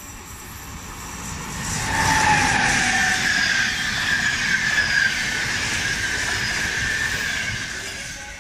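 Siemens Vectron MS electric locomotive hauling passenger coaches through the station: the sound builds over the first two seconds, then holds as a steady rush of wheels on rail with a high ringing tone, and drops away near the end.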